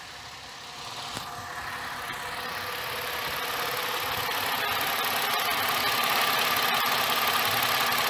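Ford Fusion V6 engine idling under an open hood: a steady hiss with a few held tones, growing steadily louder, with a faint single click about a second in.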